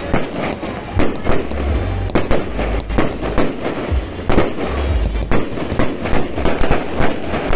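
Aerial fireworks display: a dense run of bangs and crackles, several a second, with deep booms among them.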